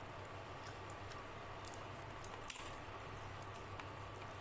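Soft wet squishing as dal and rice are mashed and mixed by hand on a steel plate, with scattered faint clicks and one sharper click about halfway through.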